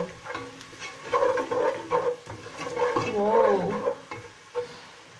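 A woman's voice exclaiming, with short vocal sounds a second in and a drawn-out, wavering "whoa" about three seconds in, over a wooden spoon stirring frying onions and ground spices in an aluminium pot.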